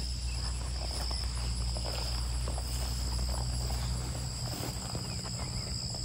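Steady chorus of insects such as crickets, buzzing at two high pitches throughout. Under it is a low rumble that drops away about four seconds in, with faint scattered rustles and ticks.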